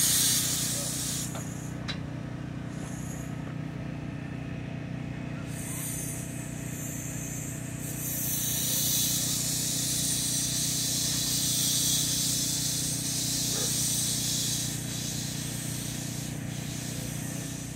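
Steam hissing from a miniature live-steam locomotive as it pulls away, the hiss swelling and easing, over the steady low hum of a farm tractor's engine idling.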